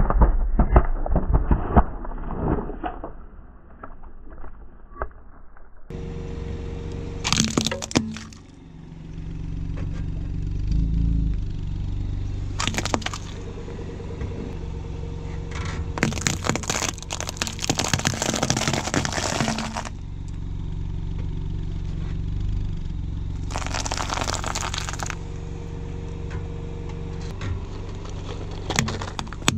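Car tyre crushing objects on asphalt. At the start aluminium soda cans crunch and burst under it. Then comes a series of cracking, breaking crunches as plastic toys give way under the tyre, over a steady low hum.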